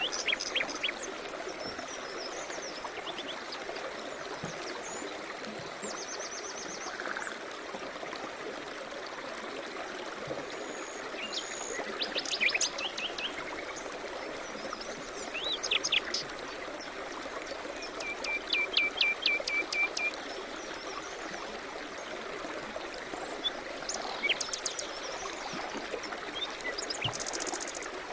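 Songbirds chirping and calling in short phrases over the steady rush of a flowing stream, with a fast trill of repeated notes about two thirds of the way through.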